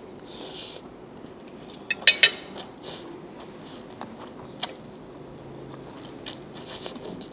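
A person eating fried instant noodles, slurping strands in and chewing with wet mouth noises. A short slurp comes near the start and another near the end, and a quick run of sharp mouth clicks about two seconds in is the loudest part.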